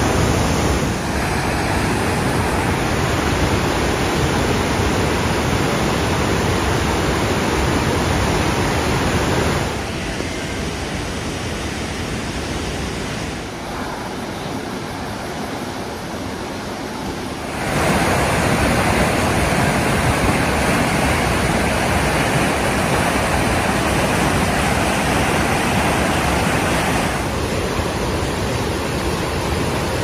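Masutobi Falls on the Katashina River: a steady rush of abundant whitewater pouring over and churning between rock ledges. It drops quieter for several seconds in the middle, then comes back up full.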